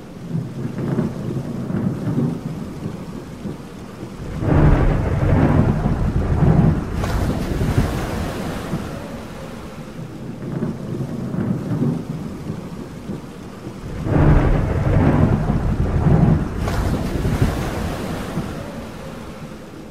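Thunderstorm: steady rain with two long rolls of thunder, one about four seconds in and one about fourteen seconds in.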